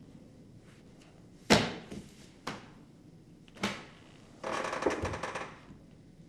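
Handling of a desk telephone handset: three sharp clunks about a second apart, then about a second of rattling clatter as the handset is put back.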